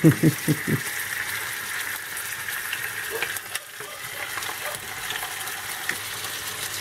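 Pieces of duck sizzling and spitting in a hot frying pan as more pieces are laid in by hand, with a few light clicks a little past the middle.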